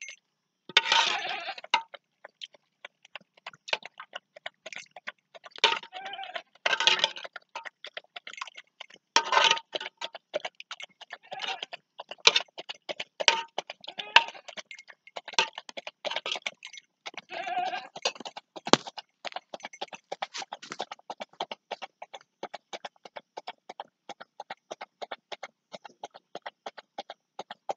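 A dog lapping a milky gruel from a steel bowl: a fast, continuous run of wet lapping smacks, broken by a few louder, longer bursts about a second in, around six to ten seconds in, and again near eighteen seconds.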